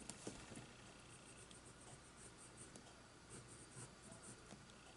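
Faint scratching of a Prismacolor colored pencil stroking across paper, with a few light ticks.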